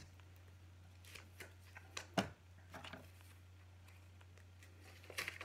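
Light handling sounds of small toy packaging and a paper card: a few scattered soft clicks and rustles, the sharpest about two seconds in and a short cluster near the end, over a faint steady low hum.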